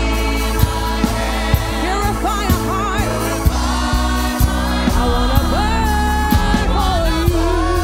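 Gospel worship music from a live church band: singers carrying a melody over sustained bass notes and a steady drum beat.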